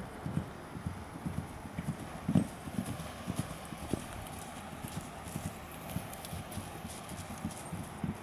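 Hooves of a ten-month-old Gypsy Vanner colt trotting on grass turf: a run of dull thuds, several a second in an uneven rhythm. One thud about two and a half seconds in is louder than the rest.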